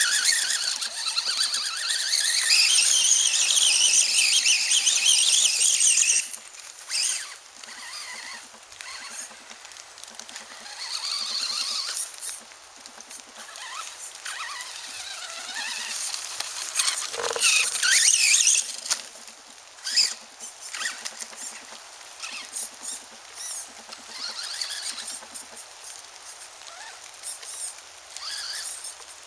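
RC buggy's motor and drivetrain whining, rising and falling in pitch as it speeds up and slows down while spinning and driving on dirt. It is loudest for the first six seconds and again from about 15 to 19 seconds, with quieter whines and small ticks in between.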